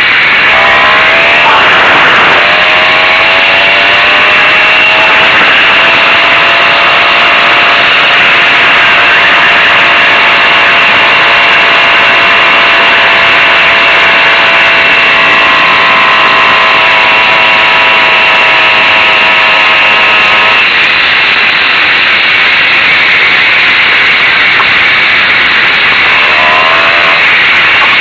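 Zündapp M50 Bergsteiger moped's 50 cc two-stroke engine running under way, its pitch rising as it picks up speed in the first couple of seconds, then holding fairly steady. About two-thirds through the engine note drops away, and it rises again near the end, all over a loud steady rush of wind on the microphone.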